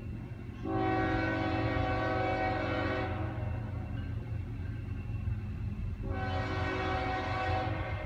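Union Pacific diesel locomotive's multi-chime air horn sounding two long blasts, each about two to three seconds, over a steady low rumble.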